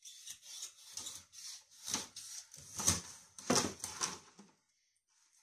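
Kitchen knife cutting a fish fillet away from its backbone on a plastic cutting board: a run of irregular scraping, cutting strokes that stop about four and a half seconds in.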